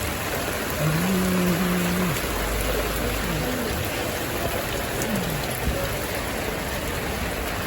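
Heavy rain falling steadily, a dense even hiss, with faint snatches of a voice, the clearest about a second in.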